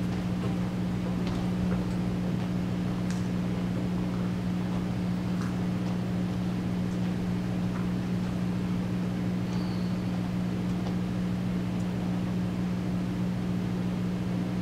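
Steady low hum in the room, unchanging throughout, with a few faint scattered clicks and taps.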